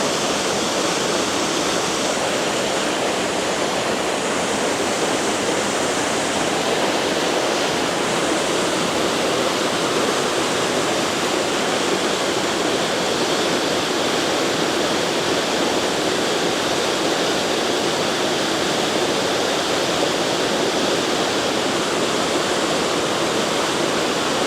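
Small waterfall on a beck, water pouring and splashing in a steady, loud rush.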